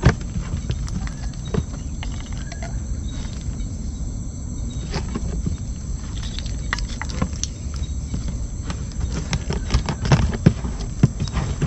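Handling noise of a mesh fish trap and a plastic jerry can as snakehead are emptied from the trap into the can: scattered clicks and knocks over a steady low rumble. The knocks come thicker near the end.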